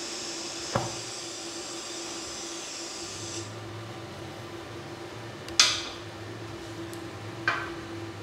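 Lift-TIG welding arc from a Daesung MIG-120 SE at 100 amps on 3 mm stainless steel plate: a steady, stable hiss that cuts off about three and a half seconds in as the arc is broken. A low hum follows, with a few sharp knocks of metal, the loudest about halfway through.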